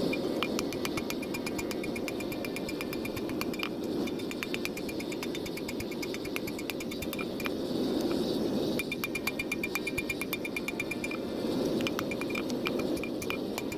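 Hammer blows on wrought iron being flattened at the forge: sharp metallic strikes, several a second in quick runs, each with a brief ring. Under them runs a steady rushing noise.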